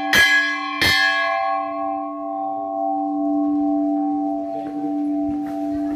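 Large hanging metal temple bell struck twice, less than a second apart, then ringing on in a long, slowly fading hum of several steady tones.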